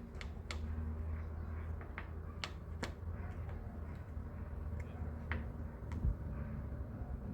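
Scattered light clicks and taps, roughly one every half second to second, with a dull thump near the end, over a low steady hum. These are hand-work noises on the trunk weatherstrip and its channel.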